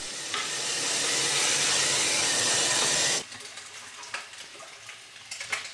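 Water running from a kitchen mixer tap into a stainless-steel sink as a steady hiss, stopping suddenly about three seconds in; a few faint clicks follow.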